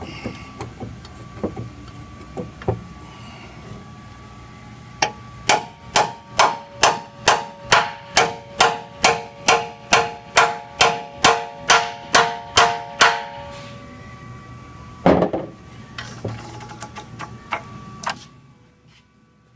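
A hammer striking steel about twenty times in a steady rhythm, close to three blows a second, each blow ringing. A single heavier thud follows about two seconds later, with a few lighter knocks before the run of blows.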